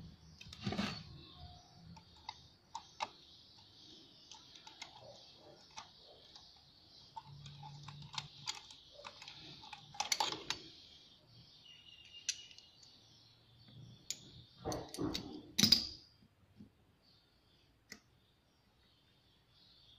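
Metal parts of a stripped diesel injection pump being handled on a wooden bench: scattered light clicks and knocks as the pieces are picked up, turned and set down, with a louder clatter of several knocks about three-quarters of the way through.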